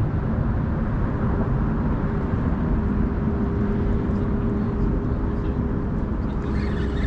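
Steady road-traffic noise with a constant hum running underneath.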